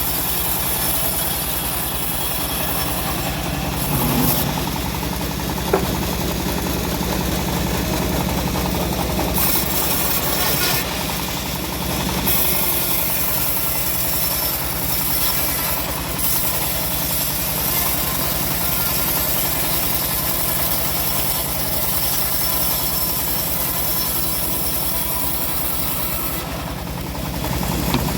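Engine-driven homemade bandsaw running steadily with a fast, even engine beat, with one brief sharp click about six seconds in.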